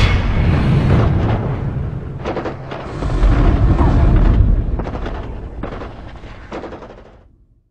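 Intro sound effect of heavy booms and a deep rumble, like a battlefield barrage, with several sharper blasts in the middle. It fades out near the end.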